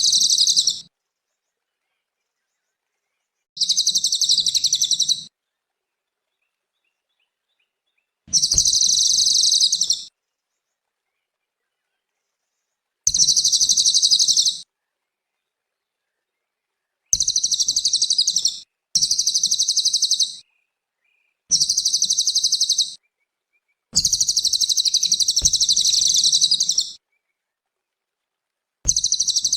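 A cililin singing: about nine fast, high, dense chattering phrases, each one to three seconds long, with silent gaps between them.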